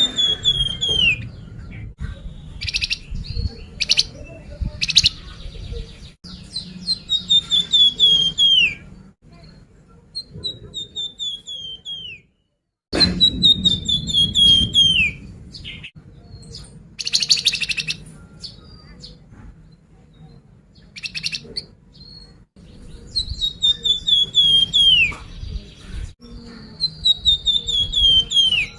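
Song of the bird known in Indonesian bird-keeping as the flamboyan, used as a lure call. It gives a bright whistled phrase that falls steadily in pitch over about a second and a half, repeated five times, with short harsh chips in between.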